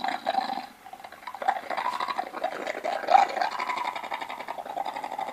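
Recorded monster growl played through a small speaker mounted in a creature costume head: a short growl, then after a brief pause a longer, buzzy growl that carries on.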